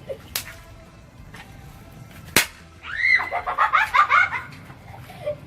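Two snap pops (bang snaps) cracking, a small one just after the start and a louder one about two seconds later, followed by a burst of giggling laughter.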